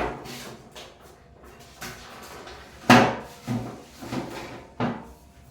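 Kitchen storage canisters and their lids being handled and set down on a counter: a handful of sharp knocks and clunks, one at the start and a cluster near the end, the loudest about three seconds in.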